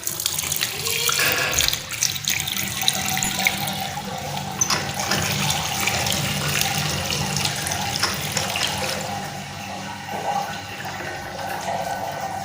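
Water running from a tap into a wash basin, splashing steadily.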